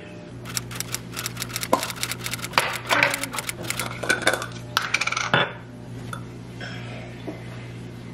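Plastic food containers and lids knocking and clicking on a stone countertop, with a metal spoon tapping and scraping as food is spooned into a small plastic tub. There is a quick run of clicks and clatters for the first five seconds or so, then only a few, over a steady low hum.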